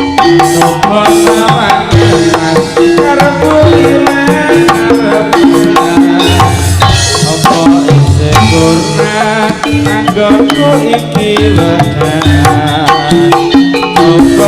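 Instrumental passage of live Javanese turonggo band music: hand drums playing a busy, steady beat under sustained melodic instrument lines.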